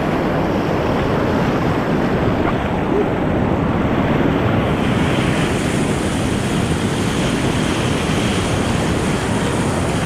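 Whitewater rapids rushing steadily, heard close up from a kayak in the rapid, with wind noise on the microphone. About halfway through, the hiss gets brighter.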